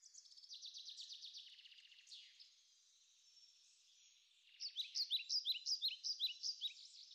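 Small songbirds singing: a fast high trill in the first second and a half, then a run of quick, high falling chirps, about four a second, from a little past halfway.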